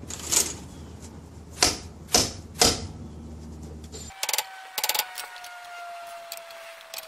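Hammer blows on steel driving a new pinion bearing race into a Dana 35 axle housing, with the old race used as the driver: four sharp strikes in the first three seconds, then a few lighter taps and a faint ringing tone that slowly falls in pitch.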